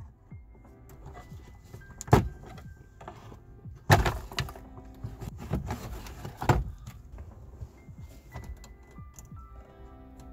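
A pry tool working plastic dashboard trim loose, giving a few sharp clicks and knocks, the loudest about two, four and six and a half seconds in, over steady background music.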